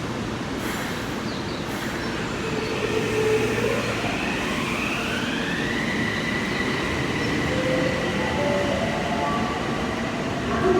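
Toei Mita Line subway train moving through the station. Its motor whine rises in pitch over a few seconds and then holds steady over the rumble of the cars, as a train does when it pulls away from the platform.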